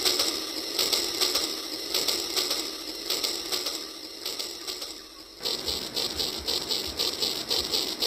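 Rail King battery toy train running on its plastic track, its small geared motor and wheels making a steady mechanical whirr with rapid, rhythmic clicking. About five seconds in, the clicking turns louder and more even.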